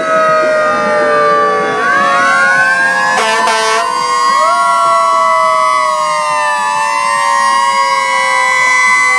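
Several fire truck sirens wailing at once, their overlapping tones sliding slowly down in pitch and climbing back up, with a short horn blast about three seconds in.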